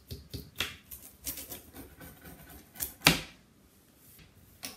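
Pizza cutter wheel rolling through a pizza and scraping on the metal sheet pan underneath in a run of short clicks and scrapes, with one sharper clack about three seconds in.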